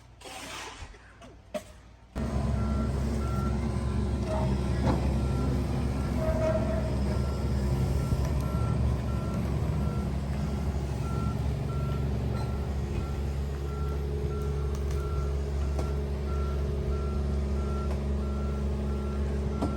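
Heavy diesel machine running steadily with its reversing alarm beeping at an even pace, about one and a half beeps a second; the engine and beeping start abruptly about two seconds in.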